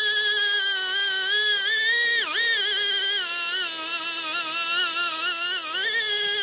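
Angle grinder running with a steady whine that wavers in pitch and dips sharply about two seconds in.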